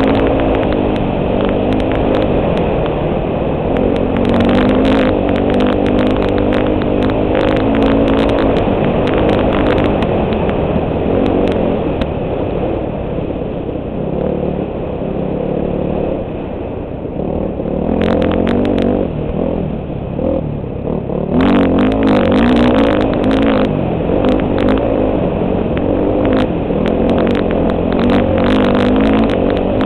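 Four-stroke dirt bike engine at race pace, heard from a helmet-mounted camera, revving up and down through the throttle, easing off about halfway through and pulling hard again a few seconds later. Scattered sharp clicks and knocks run over the engine sound.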